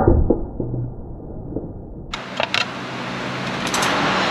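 Hand tools working at stuck bolts under a truck: a sharp knock at the start, a few lighter clicks and clinks, then a steady hiss from near the end.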